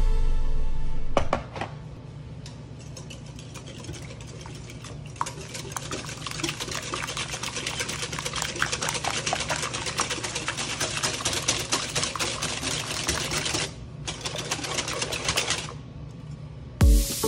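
Wire balloon whisk beating eggs, egg yolks and sugar in a glass bowl: rapid, steady clicking and scraping of the wires against the glass, with a short break near the end.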